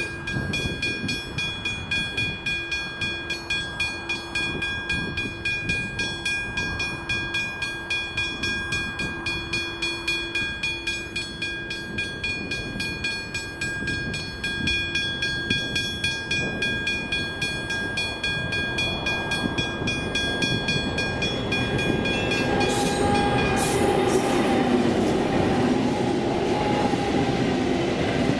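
Level crossing warning bell, a Westinghouse hybrid bell, ringing in quick even strokes, about three a second. About 22 seconds in, the bell is lost under the louder sound of a coal train's diesel locomotives passing close by, followed by the rattle of its empty coal hopper wagons.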